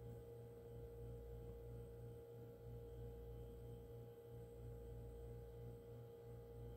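Near silence: faint room tone with a low steady hum and a thin, steady pitched tone above it.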